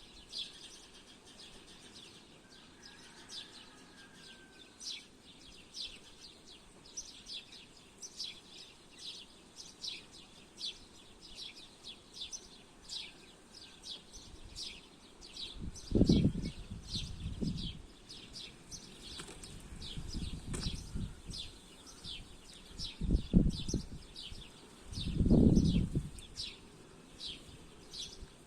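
Birds chirping, a steady series of short, high, falling chirps about two a second. A few loud low rumbles break in about halfway through and again near the end.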